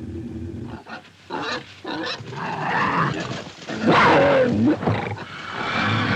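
Panther and wild boar fighting: a run of separate growls and snarls with short gaps between them, the loudest about four seconds in.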